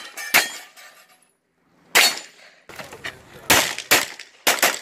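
A string of handgun shots fired in rapid succession, about seven sharp cracks, several in quick pairs, with a brief gap about a second in.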